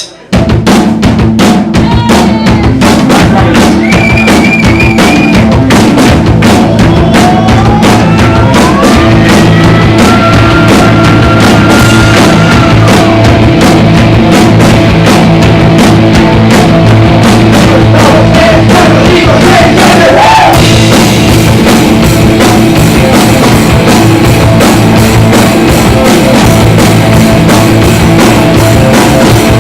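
Live garage rock band kicking in loudly and playing without a break: a full drum kit with bass drum, and amplified instruments. It starts abruptly just after the start.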